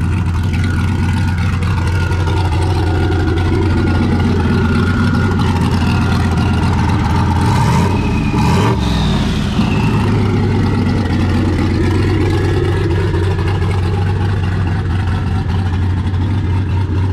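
Turbocharged pickup truck engine running steadily, with a brief rev by hand at the throttle about eight seconds in, its pitch rising and falling back.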